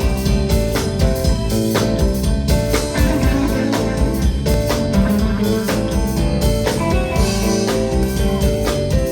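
Live blues band playing an instrumental passage with no singing: guitar over bass and drum kit, with a steady beat.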